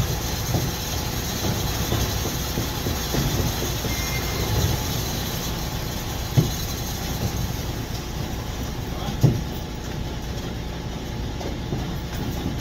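Heavy truck engine running with a steady low rumble as concrete is pumped into the insulated concrete wall forms, with two sharp knocks about six and nine seconds in.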